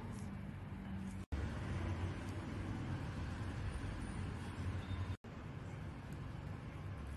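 Steady background noise, a low rumble with hiss. It drops out abruptly twice, about a second in and about five seconds in.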